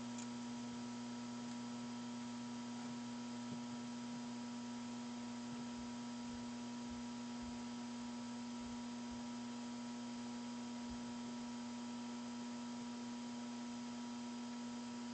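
Steady electrical hum made of several constant tones, under an even hiss. A few faint, soft low thuds come in the middle. Nothing from the snake or the rat stands out.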